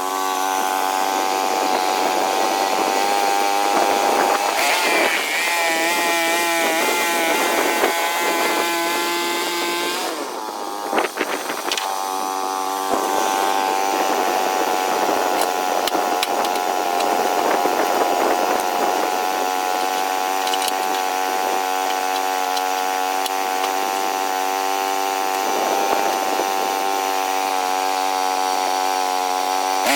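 Small sawmill's engine running steadily at high speed while the saw cuts a log, the pitch wavering under load. About ten seconds in it dips briefly, with a few sharp knocks, then runs steady again.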